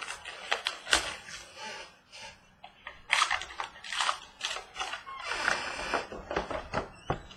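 Trading-card box packaging being handled and opened by hand: rustling with scattered clicks and taps, heaviest about three and five seconds in.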